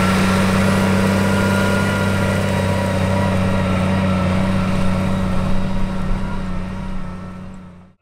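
Case IH Magnum MX270 tractor's diesel engine running steadily as it pulls a grain chaser wagon across stubble. The sound fades out over the last second or so.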